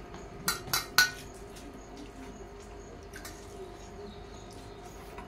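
Hands eating rice from stainless steel plates: three sharp clinks on the steel about a quarter second apart, about half a second to a second in, the third the loudest, then faint small clicks of scooping and mixing.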